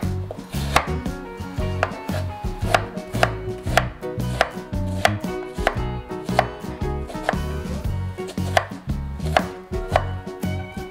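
Kitchen knife chopping a pear into chunks on a wooden cutting board: a series of sharp knocks of the blade through the fruit onto the board, one or two a second.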